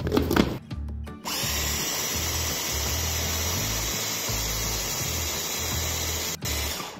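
A metal spoon clinks against the plastic bowl a few times, then a small electric food processor's motor starts about a second in and runs steadily for about five seconds, with a brief break near the end. It is churning frozen pineapple chunks with condensed milk into sorbet.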